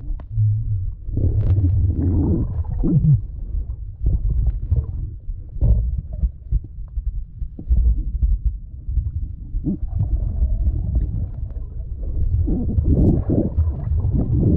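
Muffled low rumbling and thudding of water moving around a camera held underwater, with a few brief wavering, muffled sounds about two seconds in and again near the end.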